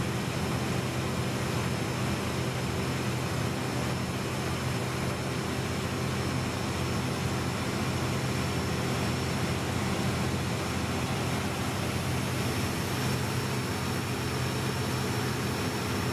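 Engine-driven Metax MP7 high-pressure plunger pump unit running steadily, engine at about 1,700 rpm: an even mechanical drone with a thin steady high whine over it.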